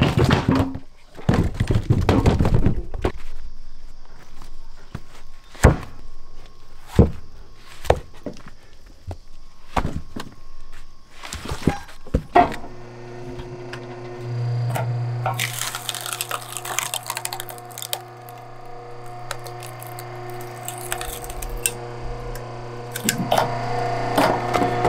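A series of sharp, separate knocks and thunks. About halfway through, steady background music with a low drone comes in and carries on.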